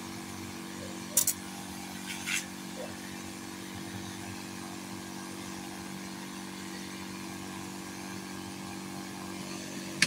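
Steady mechanical hum of a running motor, several even tones held without change, with two short hisses about a second and two seconds in.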